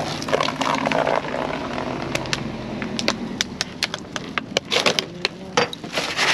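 Plastic bags and a mesh produce bag crinkling and rustling as a gloved hand rummages through trash in a dumpster, with many sharp crackles through the middle and end, over a steady low hum.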